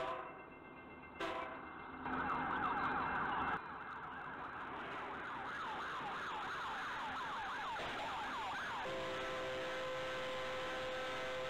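Two short horn blasts, then a police siren yelping, its pitch sweeping up and down several times a second. About nine seconds in, a Union Pacific locomotive's horn takes over with a long steady chord.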